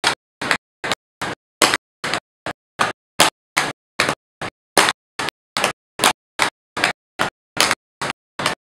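Tap shoes striking a portable dance board in a steady, even rhythm of about two to three sharp taps a second.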